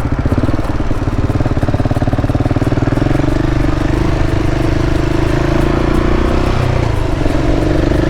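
KTM 690's single-cylinder engine running steadily at cruising revs as the motorcycle rides along.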